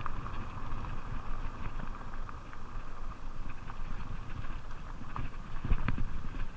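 Fuji Beartooth 27.5+ mountain bike running fast downhill on a dirt trail: a steady low rumble from the plus-size tyres and ground, with the bike rattling and clicking over bumps and a harder knock near the end.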